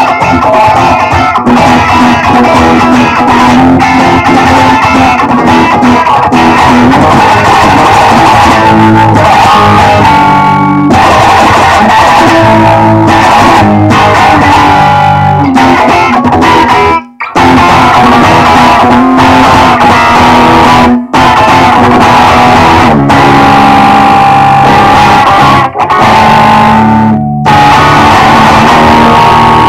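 Loud punk rock instrumental on electric guitar and bass guitar. It stops dead for a moment about 17 seconds in, and again briefly a few times after.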